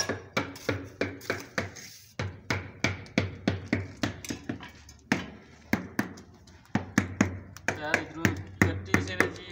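A hammer tapping on ceramic floor tiles, about four sharp knocks a second with a few short pauses, as the tiles are bedded into fresh mortar.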